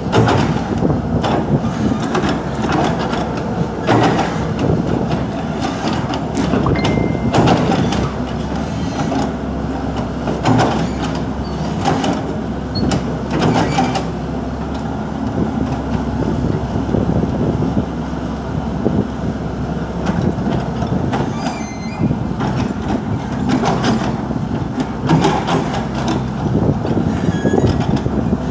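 Komatsu hydraulic excavator running steadily under load as it digs and moves soil, with a low engine rumble and occasional sharp knocks and clunks.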